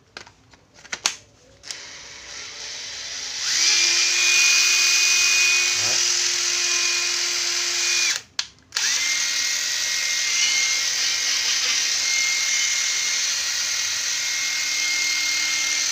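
Makita 12V cordless driver running free with no load: the trigger is squeezed in gradually until the motor holds a steady high whine, then it stops abruptly on the brake about eight seconds in. It starts again almost at once and runs steadily at a slightly lower pitch. A few handling clicks come before the first run.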